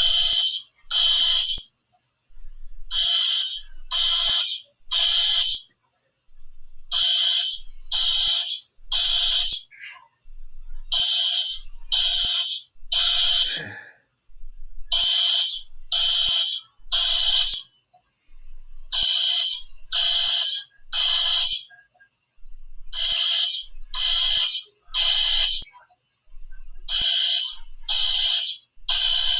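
Fire alarm sounding in groups of three short blasts separated by pauses, repeating about every four seconds: the three-pulse evacuation signal.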